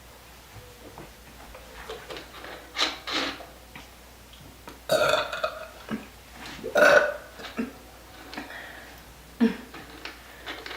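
A girl burping several times after drinking carbonated Vanilla Coca-Cola, a series of separate burps. The two loudest come about five and seven seconds in, with smaller ones around three seconds and near the end.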